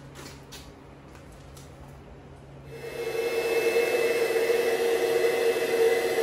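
A motor-driven machine starts up about three seconds in and runs steadily with a strong, steady hum. Before that there is a faint low hum and a few light clicks.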